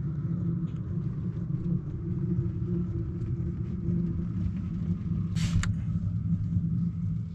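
A steady low engine rumble with a hum, with one short sharp rustle about five and a half seconds in.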